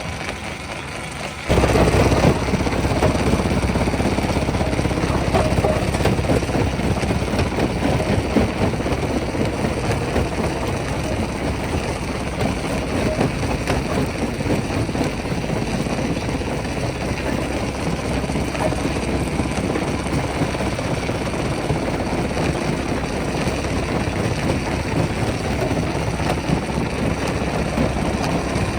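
Heavy rock-crushing machinery running steadily, a dense engine drone with irregular clatter. It becomes suddenly louder about a second and a half in.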